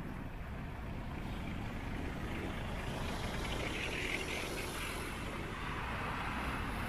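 Steady low rumble of wind buffeting the microphone while cycling along a paved road, with a haze of tyre and road noise.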